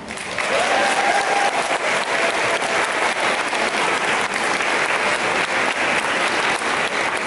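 Audience applauding steadily after a children's choir song ends.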